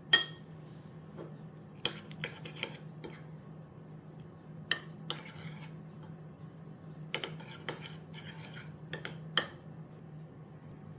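Metal cutlery clinking and scraping against dishes: scattered sharp clinks, often in quick pairs, the loudest a ringing clink right at the start, over a steady low hum.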